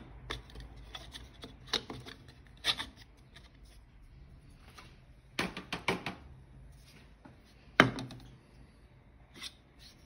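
Scattered clicks and knocks of hard plastic vacuum-cleaner parts being handled and fitted together: the dust cup and filter holder of a Philco Ciclone Force stick vacuum. A quick cluster of knocks comes a little past halfway, and the loudest single knock comes about eight seconds in.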